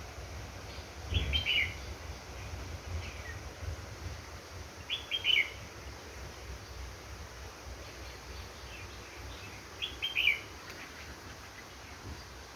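A songbird calling: three short bursts of a few quick chirps each, about four to five seconds apart.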